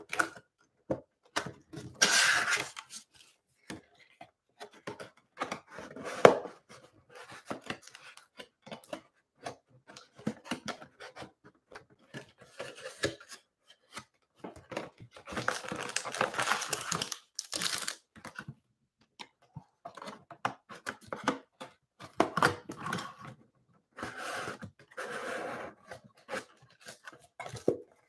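Cardboard trading-card box being torn open and unpacked by hand, with irregular bursts of tearing and rustling card stock and a single sharp click about six seconds in. Foil card packs crinkle as they are lifted out in the later bursts.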